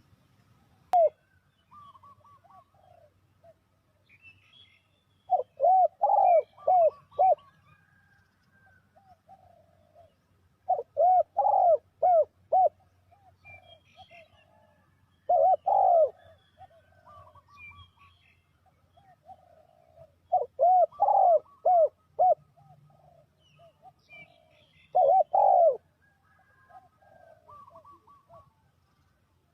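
Spotted dove cooing in repeated phrases of several quick coos, about one phrase every five seconds, with softer coo notes between phrases. Faint chirps of other small birds sound in the background.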